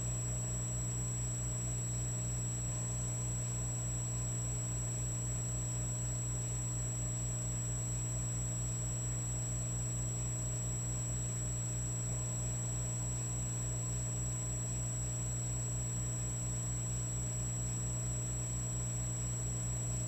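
Electric fireplace log insert humming steadily: a low electrical hum with a thin high whine over it, unchanging throughout.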